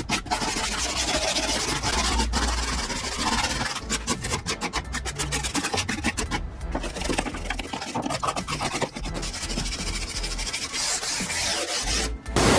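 Wire brush scrubbing the stripped interior of a car body in quick, irregular rasping strokes, breaking dirt loose and scuffing the old paint as prep for painting.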